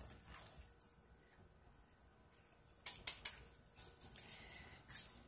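Faint handling sounds of a plastic measuring cup and silicone spatula being emptied and scraped over thick hot-process soap batter in a crock pot: a few light taps and clicks, several close together about three seconds in and another near the end.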